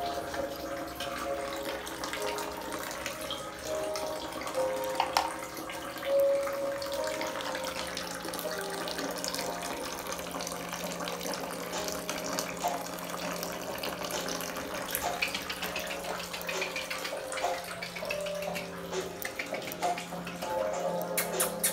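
Water running steadily, like a tap or a filling tub, with a melody of background music, and a quick run of clicks and splashes near the end.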